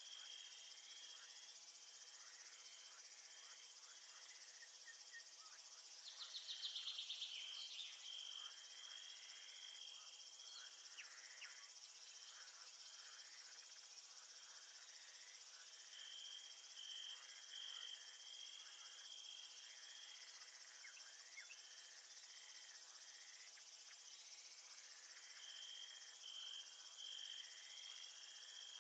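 Crickets and other insects chirping in a steady night-time chorus, with runs of pulsed chirps coming and going. About six seconds in, a louder, rapidly pulsed trill stands out for a couple of seconds.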